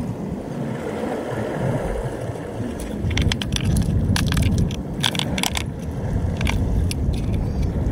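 Wind rumbling on the microphone, with a run of light clicks and clinks from about three to seven and a half seconds in, like small hard objects being handled.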